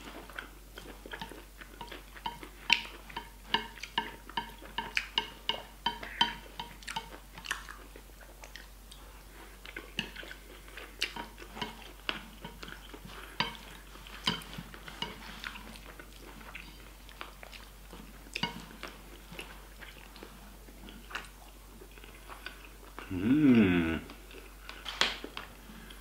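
Close-up eating sounds: chewing and biting mouthfuls of rice and stir-fried chicken and vegetables, with many small sharp clicks and smacks. About 23 seconds in, a short hum from the eater slides down and back up in pitch.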